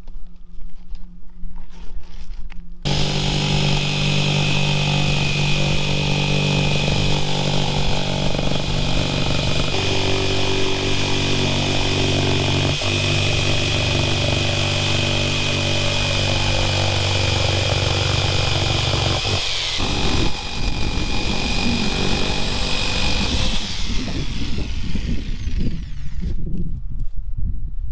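A motor-driven power tool runs steadily for about twenty seconds with a fixed high whine, its lower tone changing partway through, then winds down. Irregular knocks come before it starts and after it stops.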